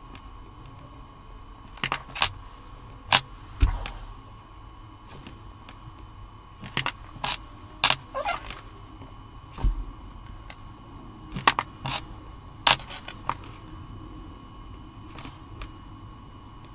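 Irregular sharp clicks and light metallic clinks, about a dozen spread unevenly, as a soldering iron and wire links are worked against the terminals of 18650 cells seated in plastic cell holders. A faint steady high whine runs underneath.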